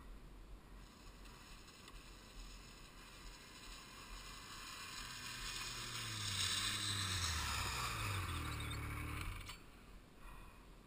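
Another snowmobile's engine coming up close and passing, growing louder from about five seconds in, loudest for a few seconds with its pitch gliding, then dropping away near the end, heard muffled through the camera housing.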